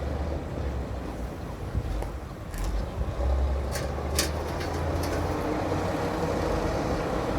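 Bulldozer's diesel engine running with a steady low rumble, and a few sharp metallic clanks between about two and five seconds in.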